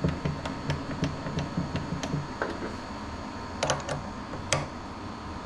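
Drill chuck on a benchtop milling machine being loosened to take out the drill bit: a run of light, regular clicks about three a second, then a few sharper metal clicks later on. A steady hum runs underneath.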